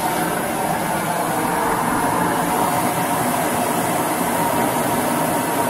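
Steady rushing noise of a running heat gun's blower and a propane-fired melting furnace while molten babbitt is poured into a steam engine's crankshaft bearing.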